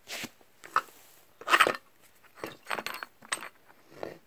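Short, irregular metal clinks and knocks, about seven in all, from a metal bar pushed and levered against a polyurethane-filled engine mount's steel bracket and stud. The loudest comes about a second and a half in.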